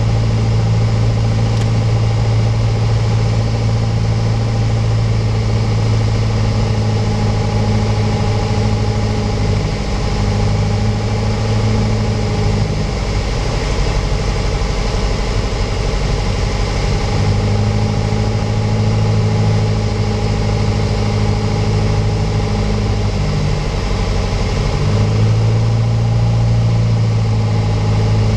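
Piper PA-28's piston engine and propeller droning steadily, heard inside the cabin on the approach to land. The note dips and shifts about ten seconds in, comes back a few seconds later, and steps again near the end, as the power is changed.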